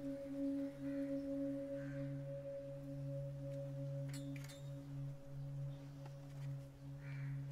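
Deep, sustained ringing of a struck metal bell, humming on several steady tones with a slow pulse. A couple of faint metallic clinks come about four seconds in.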